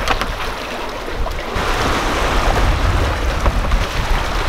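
Water rushing and breaking in the wake of a fast-moving sailing yacht, with wind buffeting the microphone. The rush steps up, louder and fuller, about a second and a half in.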